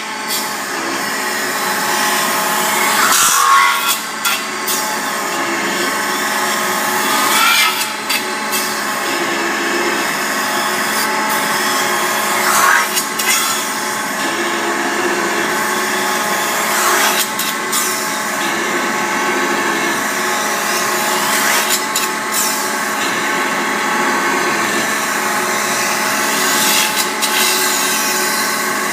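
CNC metal spinning lathe forming a spinning sheet-metal disc over a mandrel: the forming roller rubs and scrapes on the metal with a steady ringing squeal. A short rising squeal sounds every few seconds as the roller makes another forming pass.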